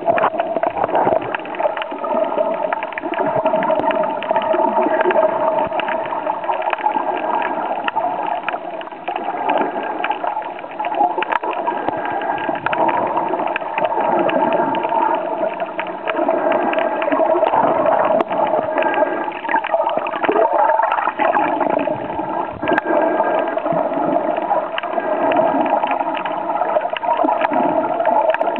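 Underwater sound picked up by a camera held below the surface while snorkeling: a constant muffled water rush and gurgling, scattered small clicks, and a steady hum underneath.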